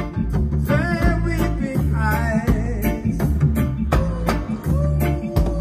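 Live nyabinghi-style reggae: hand drums keeping a steady beat over bass and guitar, with a sung line about a second in and again around two seconds.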